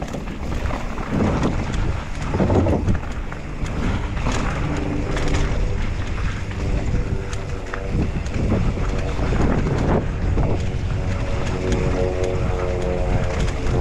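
Wind rushing over the microphone with the jolting rattle of a downhill mountain bike riding fast over a rough trail. A steady pitched hum joins in about eight seconds in.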